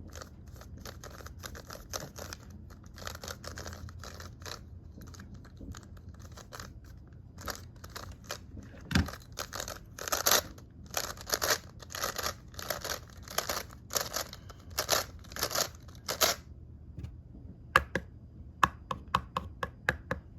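Skewb twisty puzzle being turned by hand: a run of short plastic clacks and scrapes as its halves twist. They come faster and louder in the middle, with a dull bump about nine seconds in, and end in a quick series of sharp clicks.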